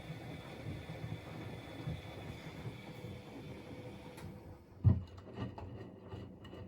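Washing machine running with a steady hum and rumble. About four seconds in the hum drops away, and a loud thump and a few lighter knocks follow.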